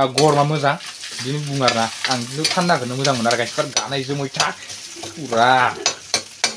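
A man's voice talking animatedly in short phrases, with one rising exclaimed cry about five seconds in, over the quieter crackling sizzle of food frying in a pan.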